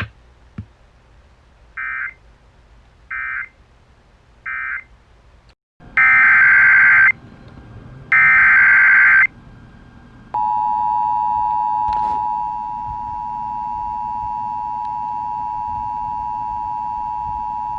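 Emergency Alert System audio off the radio. First come three short buzzy digital data bursts, then two louder bursts about a second long each: the SAME data codes that close one alert and head the next. From about ten seconds in, the steady two-tone EAS attention signal sounds.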